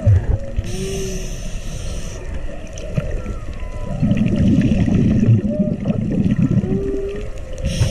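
Underwater scuba sounds: a diver's regulator hisses on an inhale about a second in, and exhaled bubbles rumble and gurgle around the middle. Several short humpback whale song calls, brief rising and falling moans, sound faintly through it.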